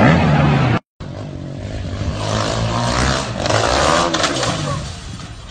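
Dirt bike engines revving hard, cut off by a moment of silence about a second in. Then another dirt bike engine revs up and swells as the bike launches off a jump ramp, dropping away near the end.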